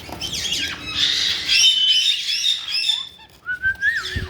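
Caique parrots chattering in a rapid run of short, high chirps, then one giving a clear whistled call near the end.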